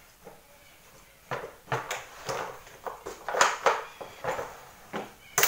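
Handling noises on a tabletop: a series of short, irregular knocks and clicks, about nine in four seconds, starting about a second in.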